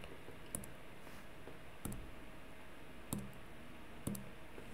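Four faint clicks about a second apart over quiet room tone: taps at a computer drawing station.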